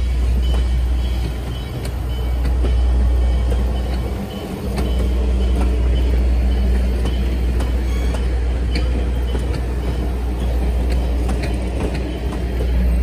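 Steady low rumble of a moving vehicle, with scattered light clicks.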